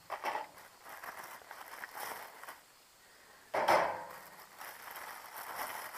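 Patio heater parts and a plastic hardware pack being handled on a metal mesh table: rustling with scattered light clatter, and a louder knock about three and a half seconds in.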